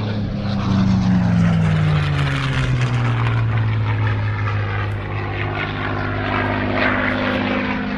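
Propeller airplane's engine flying past, loudest about a second in, its pitch dropping as it goes by and then settling into a steady drone.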